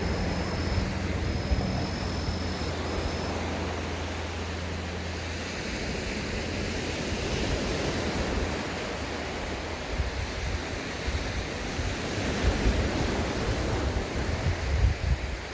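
Sea waves washing onto a beach, swelling and falling back. A low steady hum runs underneath for the first five seconds or so and then stops, and wind buffets the microphone near the end.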